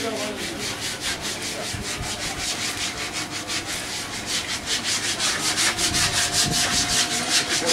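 Rhythmic rubbing or scraping strokes, about four a second, growing louder toward the end.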